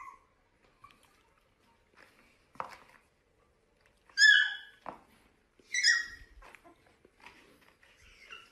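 Puppy giving two loud, high-pitched yips about a second and a half apart, then a fainter one near the end, with a few soft taps in between.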